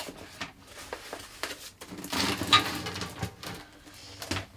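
Unboxing handling noise: packaging and dust-extractor parts being rustled and knocked as they are lifted out of the cardboard box. Irregular rustles and light knocks, loudest in a noisier stretch about two seconds in.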